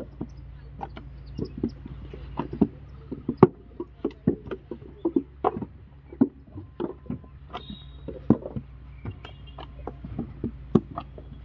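Irregular knocks and wet slaps from hand-molding bricks: lumps of wet clay thrown into wooden brick molds and the molds knocked down on the ground, by several workers at once, about two or three strikes a second.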